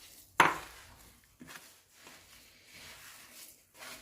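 Hands mixing a crumbly semolina and coconut cookie dough in a bowl, with soft, uneven rubbing strokes. A single sharp knock comes about half a second in.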